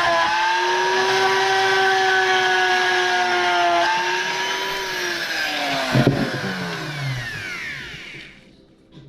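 Dremel rotary tool running at high speed, grinding out the leftover nut, its whine sagging slightly under load. About five seconds in it is switched off and spins down, the whine falling steadily in pitch and fading, with a sharp knock about six seconds in.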